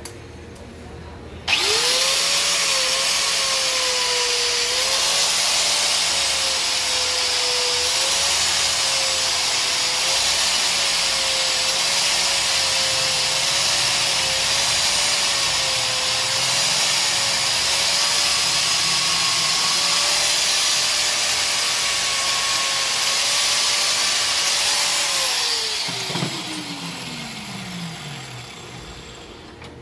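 Electric grinder grinding down a fresh weld on a steel motorcycle gear lever: it starts about a second and a half in and runs with a high grinding hiss, its pitch dipping and wavering slightly as it bites. Near the end it is switched off and its pitch falls as it winds down.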